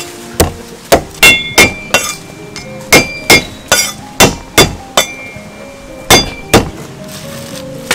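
Steel cleaver chopping galangal on a wooden chopping block: a quick run of sharp chops, about two to three a second, some leaving a short metallic ring from the blade. The chopping pauses about six and a half seconds in.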